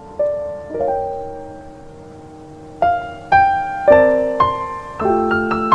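Gentle background piano music: a few slow, sparse notes that ring and fade, then a quicker run of notes and chords from about three seconds in.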